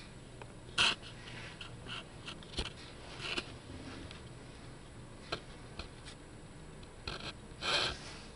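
Handling noise from a handheld camera moving through a small cluttered room: three short hissing rustles, the loudest near the end, and scattered small clicks over a low background hiss.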